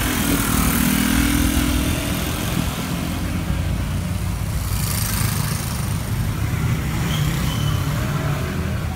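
City street traffic: cars and motor scooters running past close by, with a scooter engine passing in the first couple of seconds, then a steady low traffic rumble.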